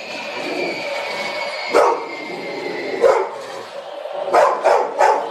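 A dog barking: single barks about two and three seconds in, then three quick barks near the end.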